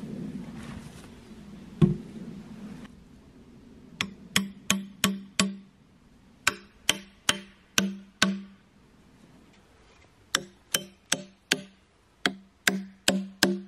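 Knocking in runs of four or five quick strikes, about three a second, with short uneven pauses between runs; each strike rings briefly at one low pitch. It starts about four seconds in, after a single sharp click near two seconds.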